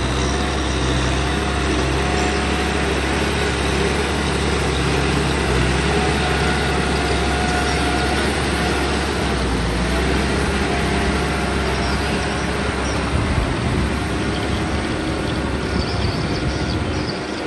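Kubota M6040 tractor's diesel engine running steadily under work, with a wavering whine above the engine note.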